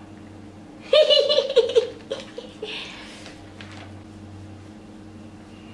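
A woman giggling: a short burst of high-pitched laughter about a second in, lasting about a second and trailing off in a few pulses. A faint steady hum runs underneath.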